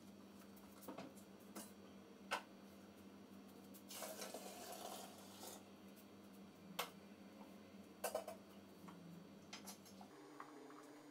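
Faint clinks and knocks of metal pots being handled and set down, the sharpest about two seconds in, with a short pour of hot water into a pot of wet mashed grain about four seconds in. A low steady hum runs underneath.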